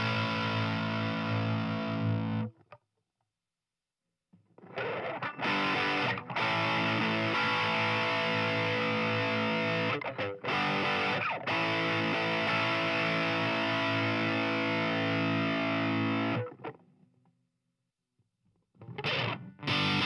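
Distorted electric guitar played through a Fender Champion 20 combo amp, demonstrating its voice settings. A riff on the British 80s voice stops about two seconds in. After a short silence comes a longer riff on the Super-Sonic metal voice, then another pause before the 90s metal voice starts near the end.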